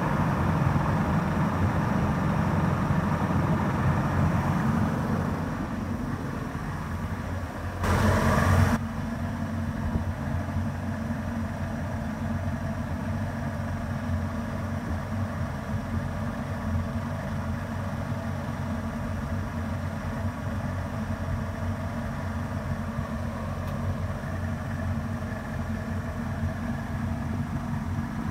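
Yamaha HPDI V6 two-stroke outboard running steadily at about 1300 rpm with its cowling off. The engine is louder for the first five seconds and a little softer after that, and there is a brief loud noise about eight seconds in.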